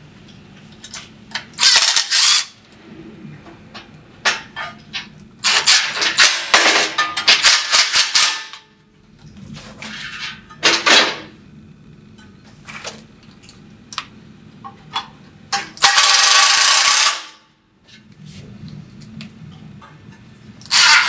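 Cordless driver running in four short bursts as it drives screws that fasten a metal wing to the end of an awning hood. Between the bursts are scattered clicks and clanks of the metal parts being handled.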